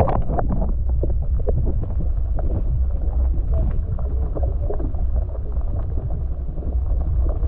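Muffled water noise on a submerged camera's microphone: a steady heavy low rumble with scattered small clicks and knocks, and nothing bright or hissy above it.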